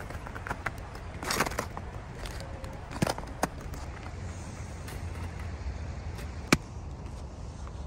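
Footsteps crunching on snow-covered river stones, a few scattered crunches and knocks over a steady low outdoor rumble. The loudest is a sharp click about six and a half seconds in.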